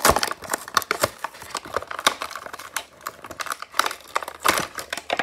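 Diecast toy car's plastic blister pack being pulled apart by hand from its cardboard backing card: irregular crinkling and crackling of the clear plastic, sharpest right at the start.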